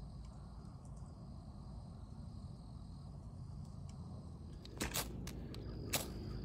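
Ferro rod struck against its scraper to throw sparks into tinder: about three quick, harsh scrapes in the last second and a half. Underneath, a low steady rumble and a thin, steady high insect drone.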